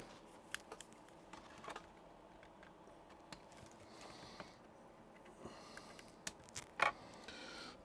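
Faint handling sounds: light clicks and rustles of hands working at a calculator's plastic case and its rechargeable battery pack, with a few sharper clicks near the end.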